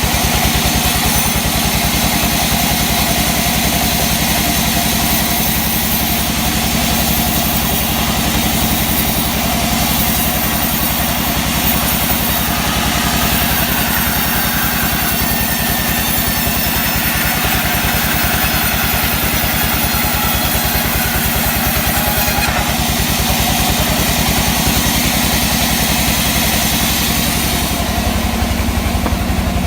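A sawmill's engine running at a steady speed, with a steady high hiss over it that fades near the end.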